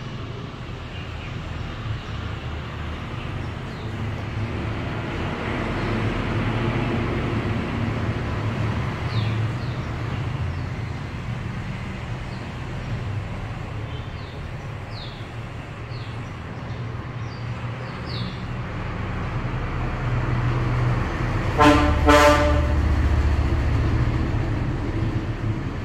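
Steady road-traffic rumble, with a vehicle horn honking twice in quick succession a few seconds before the end.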